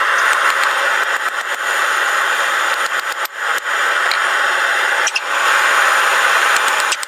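Propane forge burner running with a steady hiss, broken briefly about five seconds in, with a few faint hammer knocks on the anvil mixed in.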